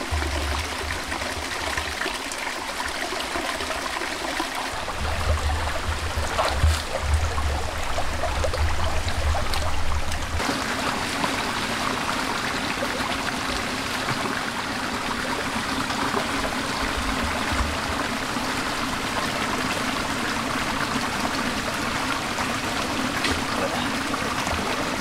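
Rocky stream running steadily, water trickling and splashing over stones. Low rumbling and a few thumps sound in the first ten seconds or so.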